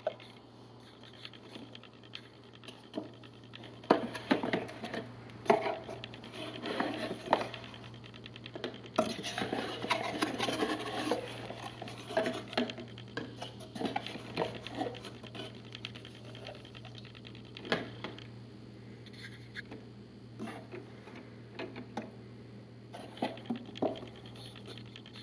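Glass Feliway refill bottles with plastic caps being handled, pulled from a cardboard box and set down on a table: scattered light clinks and knocks mixed with cardboard rustling, busiest in the first half. A steady low hum runs underneath.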